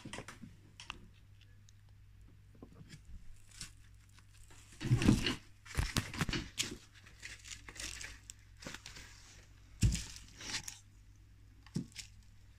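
Plastic bubble wrap and objects on a table being handled: irregular rustling and small clicks, with two louder bumps about five and ten seconds in.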